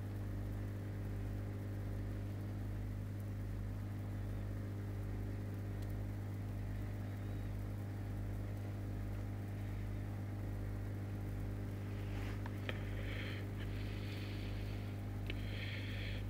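A steady low electrical hum with a slow pulsing underneath. About twelve seconds in, a few clicks and short hissing bursts join it.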